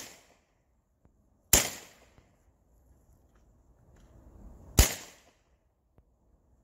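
Evanix semi-automatic pre-charged pneumatic air pistol firing. Two sharp cracks about three seconds apart, each dying away quickly, after the tail of a previous shot.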